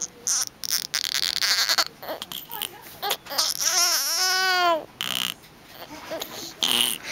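Baby crying through a blocked nose: pig-like snuffly, noisy bursts, with one clear wailing cry lasting about a second, three and a half seconds in.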